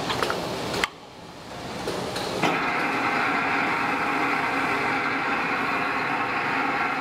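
A three-roll plate rolling machine's gear drive running: a steady mechanical hum with a whine in it that builds over about a second and a half and then holds steady. Before that, near the start, clicking and handling noise breaks off suddenly.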